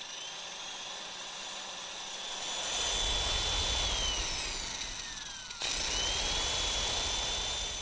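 High-pitched whine of a fast-spinning electric motor with several tones. It rises as it spins up, holds steady, then falls away about four to five seconds in. It cuts off sharply and spins up again, with a low rumble underneath.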